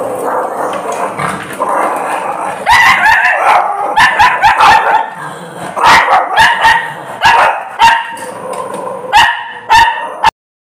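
Shih Tzus barking: a quick run of sharp, short barks starting about three seconds in. The sound cuts off suddenly near the end.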